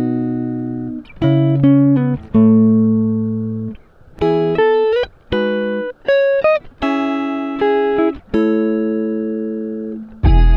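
Background music: a plucked guitar melody, single notes struck one at a time and left to ring, some bent upward in pitch.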